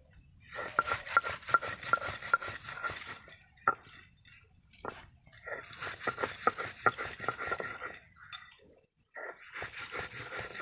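Stone pestle being rubbed and rolled back and forth on a flat grinding stone (sil-batta), grinding red-ant chutney in quick scraping, knocking strokes, with bangles clinking on the grinder's wrists. The grinding pauses briefly about four seconds in and again near eight seconds.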